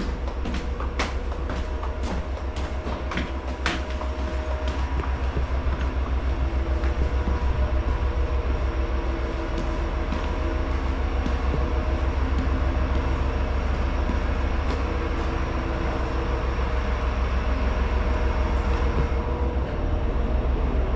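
Diesel railcar engine running at a steady idle, a fast low throb with a few steady tones above it. A few sharp clicks come in the first few seconds.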